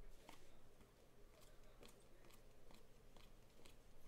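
Near silence with faint soft clicks and slides of trading cards being dealt one at a time off a stack, about two a second.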